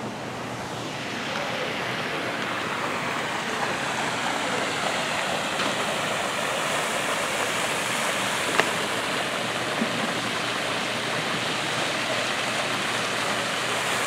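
Pond fountain jet splashing back into the water, a steady rushing splash that swells about a second in and then holds, with a sharp click about eight and a half seconds in.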